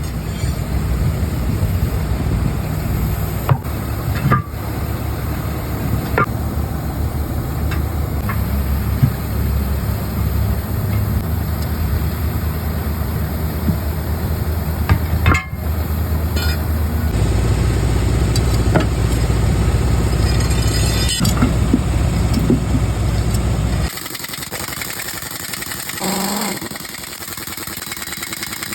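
A truck engine running steadily, with a few sharp metallic knocks. It gets louder about two-thirds of the way through and drops off abruptly near the end.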